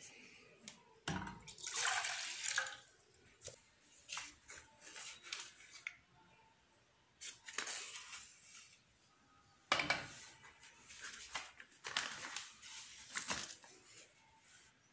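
Irregular short scrapes and rustles as a metal spoon scoops powdered porridge mix from a paper packet into a saucepan of milk and stirs it, with soft liquid sounds from the pan. Quiet gaps fall between the bursts.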